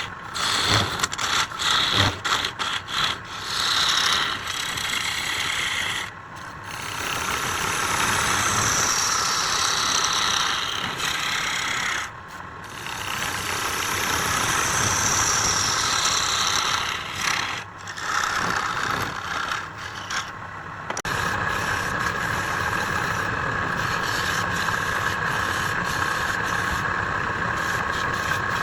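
Wood lathe running while a turning tool cuts the spinning wood, a rasping, hissing cut that comes in spells, breaking off briefly about six, twelve and seventeen seconds in. In the last several seconds the sound settles into a steadier, even hum.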